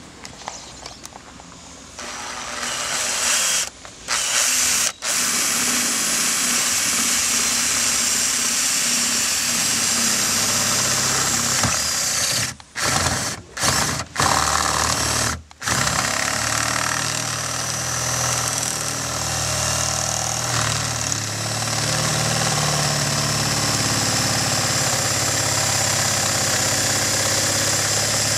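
Power drill boring through a Chevrolet truck's plastic steering column cover into the metal ignition lock housing, to reach the lock bar that keeps the ignition cylinder from turning. It starts about two seconds in, stops briefly a few times in the first half, then runs steadily under load to the end.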